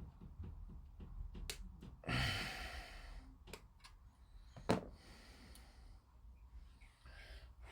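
A breath out close to the microphone about two seconds in, and a few small clicks and taps of plastic model-kit parts being handled, the sharpest one near the middle.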